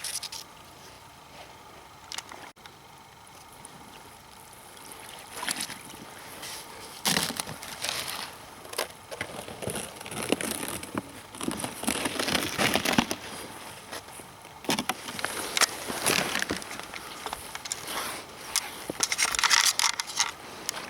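Irregular sloshing and splashing of water mixed with crunching and rustling handling noises, in uneven bursts that come and go.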